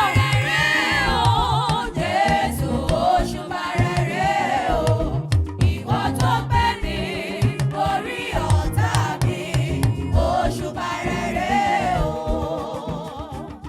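Yoruba gospel praise music: voices singing a wavering melody in chorus over drums and percussion.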